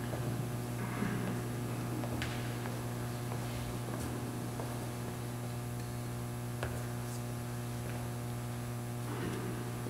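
Steady low electrical mains hum in the audio feed, with a few faint, scattered clicks and taps.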